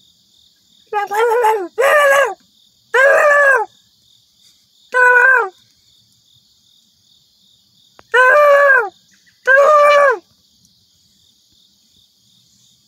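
Steady high chirring of crickets or similar insects, with six separate drawn-out animal calls over it. Each call lasts about half a second, with a clear pitch that rises and then falls. Four come in the first five seconds and two more follow about eight seconds in.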